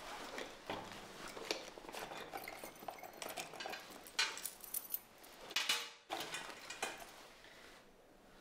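A handbag being handled: light metal clinks and rattles of its fittings and contents, mixed with rustling. The clinks come irregularly, loudest around the middle, and die away near the end.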